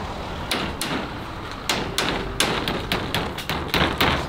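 Hammer blows driving nails into timber: a run of sharp knocks, a few spaced out at first, then coming faster from about halfway.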